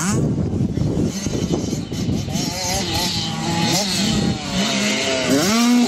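A 65cc two-stroke motocross bike's engine revving, its pitch rising and falling with the throttle and climbing steeply near the end.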